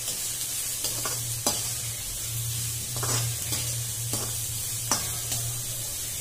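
Chopped cabbage and capsicum sizzling in hot oil as they are stir-fried over a high flame. A perforated metal slotted spoon scrapes and taps against the pan at irregular moments, over a steady low hum.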